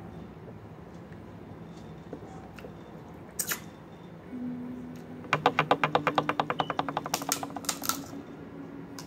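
Crab leg shell cracking in the hands: a couple of sharp snaps, then a rapid run of crackles about ten a second for nearly three seconds, over a low steady hum.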